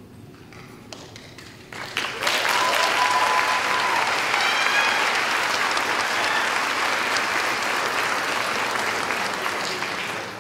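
Audience applauding. The clapping breaks out about two seconds in and fades away near the end, with a short cheer over it early on.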